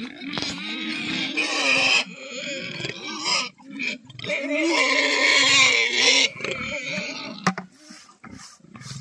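Domestic pig squealing loudly in two long, shrill bouts, with shorter squeals and grunts between them.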